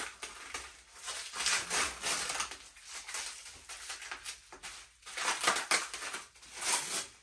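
Packing material and tape on a new printer being pulled and handled: a series of irregular, scratchy bursts, heaviest a little past a second in and again toward the end.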